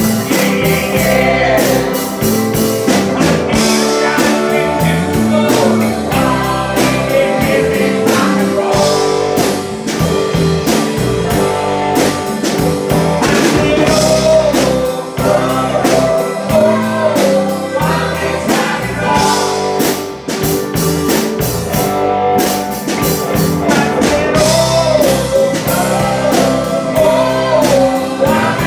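A blues-tinged rock and roll song: a singing voice over guitar and a steady drum beat.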